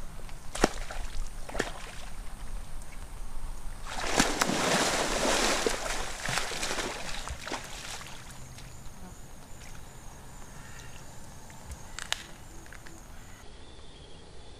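Water splashing and sloshing as an alligator thrashes in shallow muddy water with a python in its jaws. There is a loud burst of splashing about four seconds in that lasts some four seconds, with a few sharp knocks before and after it.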